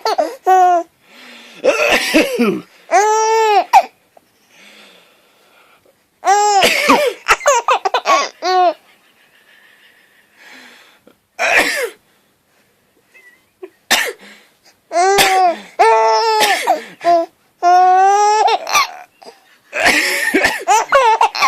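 An adult's coughs and sneezes alternate with bouts of a baby boy's high giggling laughter, several rounds with short quiet gaps between them.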